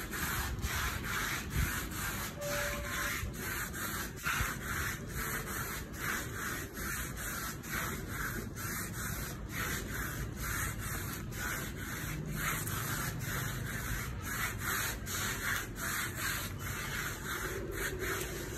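A rhythmic rubbing or scraping noise, pulsing evenly about two to three times a second.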